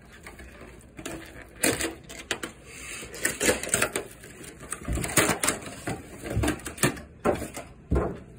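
Cardboard and plastic packaging of a trading-card box being torn open by hand: a run of irregular ripping and crackling noises.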